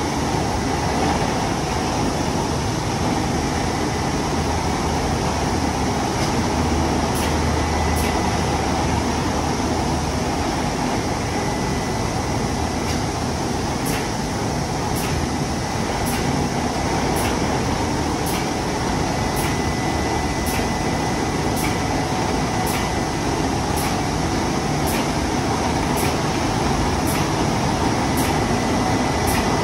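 Emme Elle LBAS high-gloss polishing machine running with a steady mechanical noise as its rotating, oscillating polishing rollers work over the table. Faint regular ticks come about once a second from around a quarter of the way in.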